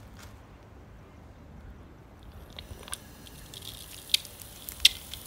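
Water starting to flow through a Dole 3/4 GPM flow control valve on a riser pipe: from about halfway in, a hiss of spraying water builds as the jet shoots up, broken by a few sharp pops, the loudest two near the end.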